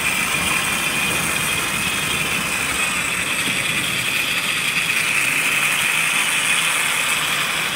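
Tri-ang TT scale Windsor Castle model locomotive running steadily round the track with a continuous mechanical whirr, a little louder about halfway through.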